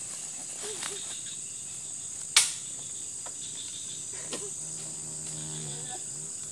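Steady high-pitched chorus of insects, with one sharp crack about two seconds in, the loudest sound, and a couple of lighter knocks after it.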